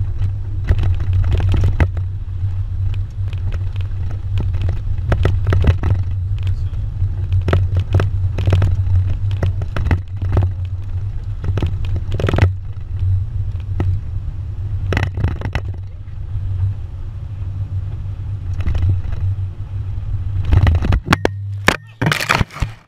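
Low rumble of a moving pickup truck heard from its open cargo bed, with wind buffeting the microphone and frequent knocks and rattles from bumps. About 21 seconds in the rumble stops and the camera is handled with a few loud scraping knocks.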